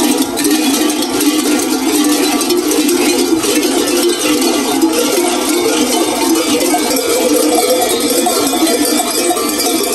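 Dozens of large bells worn at the belts of kukeri mummers clanging continuously as the dancers walk and sway in procession, a loud, unbroken jangle of overlapping ringing tones.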